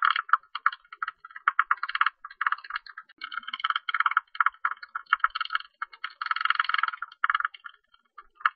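Tube-nosed bat calls: rapid trains of short clicking pulses, coming in bursts of a fraction of a second to about a second with short gaps between them.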